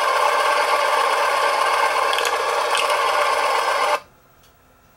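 Soundtrack of an old recorded video played through laptop speakers: a loud, steady mechanical clatter that cuts off suddenly about four seconds in as playback is stopped.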